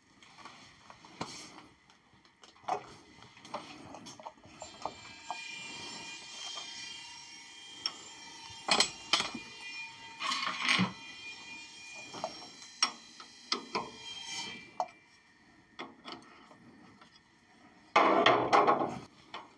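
Oil draining from a lathe gearbox into a round metal drain pan, with metallic clinks and knocks of the pan being handled and a hissy trickle through the middle. A louder metal clatter comes near the end as a hex key is handled.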